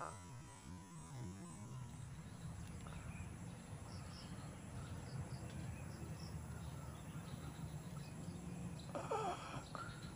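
Faint outdoor ambience of birds and insects in the trees, with scattered high chirps. About nine seconds in, a brief louder sound with a curving, falling pitch stands out.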